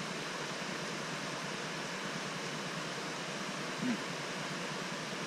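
Steady rushing of river water, an even hiss with no rhythm or pitch.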